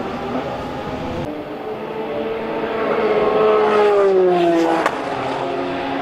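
Racing car engines at speed on a circuit; one engine grows louder and its note falls steadily in pitch around the middle, with a sharp click just before the end.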